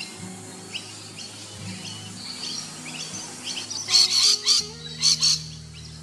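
Oriental dollarbird calling: scattered faint chirps, then a burst of five or so loud calls about four to five seconds in. Soft background music with held low notes plays underneath.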